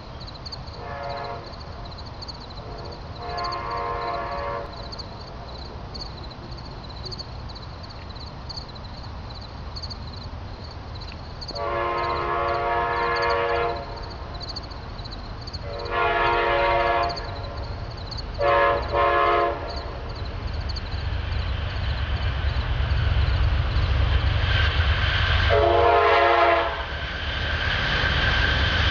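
Horn of an Amtrak train led by P42 diesel locomotives, blown in a series of blasts as the train approaches: two faint ones early, then a long blast, two shorter ones close together, and one more near the end. Under the blasts, the rumble of the diesels and the rail noise swell in the second half as the train nears.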